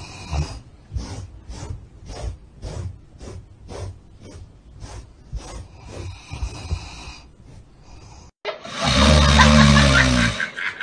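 A sleeping golden retriever snoring while a rubber pet-hair brush scrapes over its fur in quick strokes, about two a second. About eight seconds in this gives way to a much louder, low drawn-out sound.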